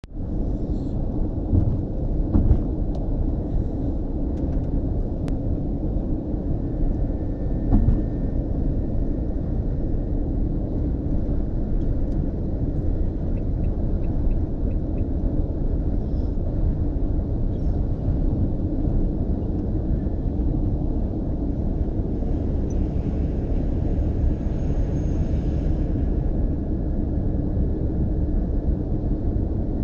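Steady low road and engine rumble of a vehicle driving at motorway speed, heard from inside the cabin, with two brief knocks about two and a half and eight seconds in.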